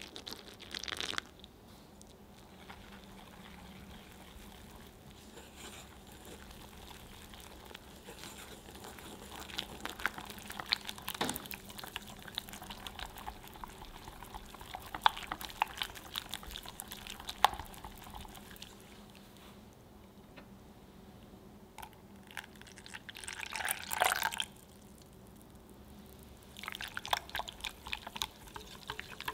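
Milk poured in a thin stream into a glass bowl of flour and egg mixture, then a wire whisk stirring the crepe batter, ticking and scraping against the glass in uneven bursts with short pauses.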